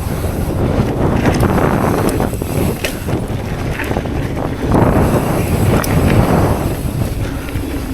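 Wind buffeting a chest-mounted camera's microphone during a mountain-bike ride, a loud rumbling rush that swells for a couple of seconds about five seconds in, with a few sharp ticks.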